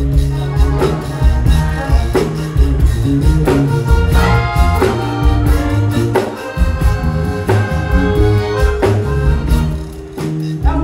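Live zydeco band playing an instrumental passage: accordion lead over bass and drums with a steady beat.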